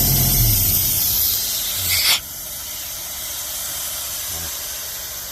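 Isuzu three-cylinder diesel of an Airman PDS90S portable air compressor shutting off about half a second in, followed by compressed air hissing out as the machine vents its pressure after shutdown. The hiss is loud until about two seconds in, drops off suddenly, then goes on as a quieter steady hiss.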